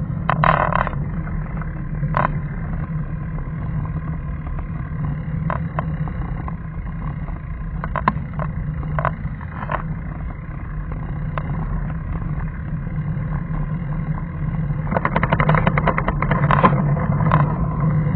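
Steady low drone of a slow-moving vehicle carrying the camera, with scattered short rattling clicks and a quick run of rapid clicks about fifteen seconds in.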